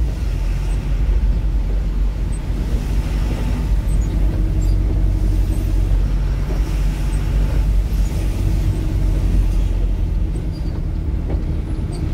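Engine and road noise of a moving vehicle, heard from inside while driving: a steady low rumble with tyre hiss.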